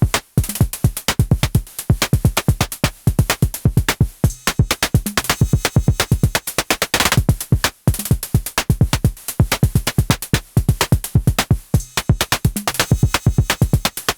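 Electronic acid-techno pattern at 128 bpm played on a Moog DFAM percussion synthesizer, a Behringer CAT synthesizer and an Elektron Syntakt drum machine: a dense, fast run of sharp synth drum hits.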